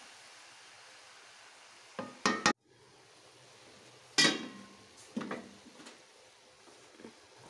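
Wooden spatula stirring food in a metal cooking pot, knocking against the pot: a quick cluster of sharp knocks about two seconds in, a louder clink with a short ring about four seconds in, then a few lighter knocks. A faint sizzle runs underneath.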